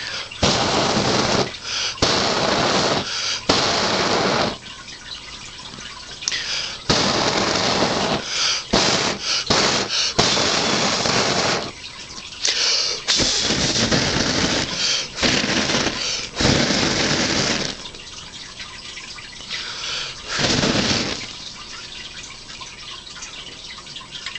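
Water rushing out in repeated bursts of about one to two seconds each, with short quiet gaps between them.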